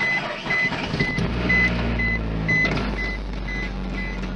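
A Suzuki Aerio's dashboard warning chime beeping steadily about twice a second, while the car's engine starts about a second in and runs with a steady low hum.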